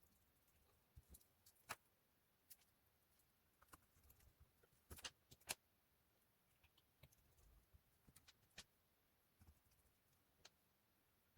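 Faint, scattered clicks and taps of small tools, screws and plastic parts being handled while a smartphone is reassembled, with a few sharper ticks about two and five seconds in.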